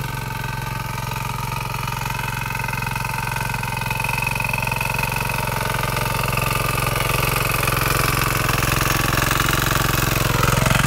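Small diesel engine of a walk-behind power tiller running steadily under load as its rotary blades till the soil, getting gradually louder as it comes closer.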